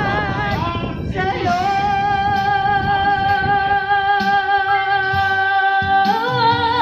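Singing into a microphone over music: a short phrase, then one long high note held for about four seconds before the melody moves on near the end.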